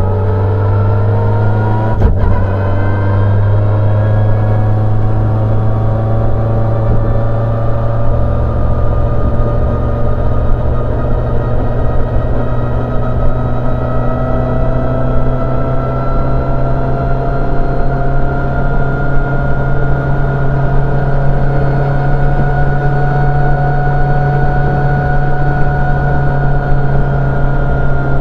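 Citroën C2 R2 rally car's four-cylinder engine heard from inside the cabin, cruising steadily with a loud low drone. Its pitch climbs slowly at first and then holds, with a single click about two seconds in.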